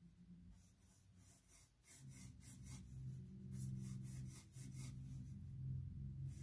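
Graphite pencil shading on paper: quick back-and-forth scratchy strokes, about four a second, getting louder and denser about two seconds in. A low steady hum sits underneath from the same point.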